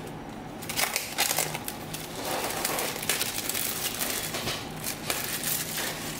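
Clear plastic shrink wrap crinkling and crackling as it is pulled off a cardboard product box, in irregular bursts starting about a second in.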